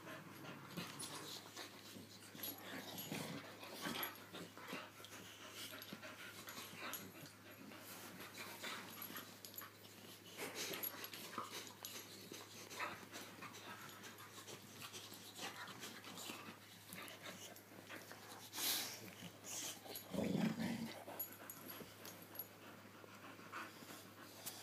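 Two dogs, a boxer among them, play-wrestling: panting and wheezy breathing with scattered scuffs and knocks, and a brief louder low growl about twenty seconds in.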